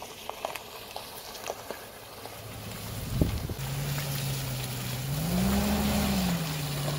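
Chevrolet Suburban driving slowly past over wet, muddy ground. A single thump about three seconds in, then its engine hum comes up, rising in pitch and swelling for a moment before easing back.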